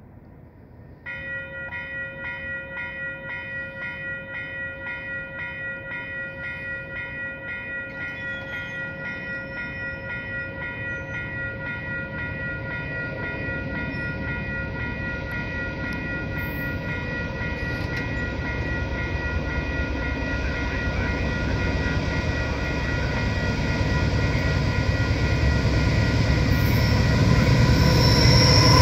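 A railway crossing warning bell starts about a second in and rings steadily, about two dings a second, over the low rumble of an approaching freight train that grows steadily louder. The train is led by a GE AC4400CW diesel locomotive, which arrives near the end, the loudest point.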